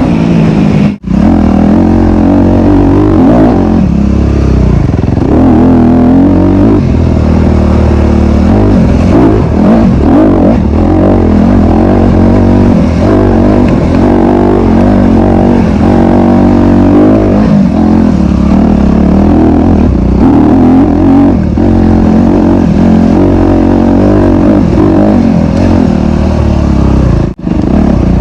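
Honda CRF250RX dirt bike's single-cylinder four-stroke engine revving up and down continuously while being ridden hard. The sound drops out sharply for a moment about a second in and again near the end.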